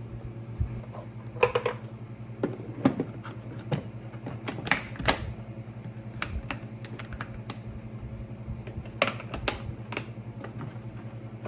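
Irregular clicks and knocks of a plastic tool carrying case and its clasps being handled, some in quick clusters, over a steady low hum.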